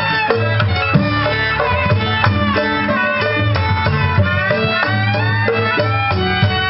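Traditional-style music: a sliding, bending melody over hand drums, playing steadily throughout.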